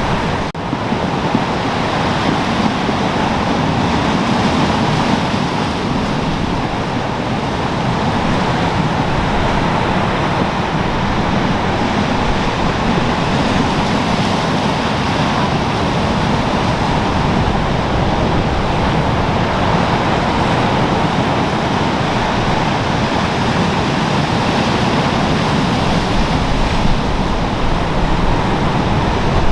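Storm-driven sea surf with wind: a steady, loud roar of breaking waves that goes on without pause.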